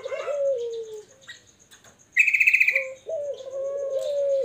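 Caged barbary dove (puter) cooing: a drawn-out coo with a rising start, at the beginning and again from about three seconds in. Between the coos another bird gives a short, rapid trill, the loudest sound, with faint chirping throughout.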